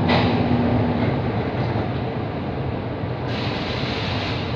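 Steady hum inside a Kawasaki–CRRC CT251 metro train standing at a station, with a short steady tone in the first second and a brief hiss about three seconds in.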